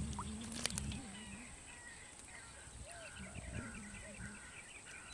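Faint animal calls: a rhythmic series of short high chirps, several a second, over a low drone that comes and goes. A few sharp clicks sound near the start.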